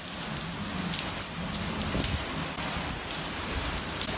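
Hurricane rain and wind: a steady rushing hiss of heavy rain with an uneven, gusty rumble underneath.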